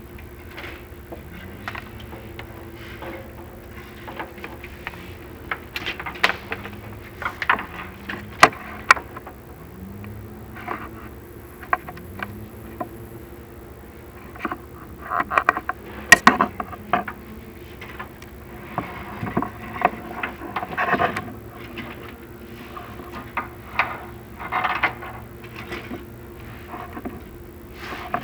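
Chimney inspection camera knocking and scraping against the creosote-coated flue walls as it is worked down the chimney, irregular sharp clicks and rasping scrapes over a steady low hum.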